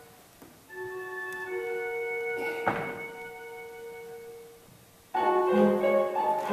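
Music for a dance piece: sustained ringing chord tones that fade away, with a brief noisy rush near the middle. About five seconds in, a louder piece with quickly changing notes starts abruptly.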